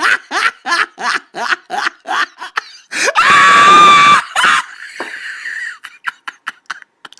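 Hysterical laughter: rapid staccato laughs at about four a second, then, about three seconds in, a loud high-pitched shrieking laugh held for about a second, trailing off into wheezy breaths.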